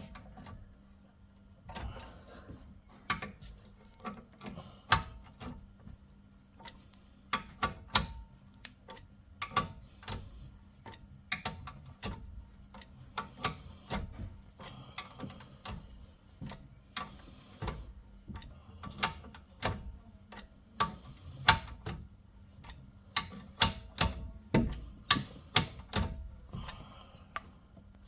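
Irregular metallic clicks and clinks, singly and in small groups, from a ratchet and socket working a brake caliper bolt that has already been loosened.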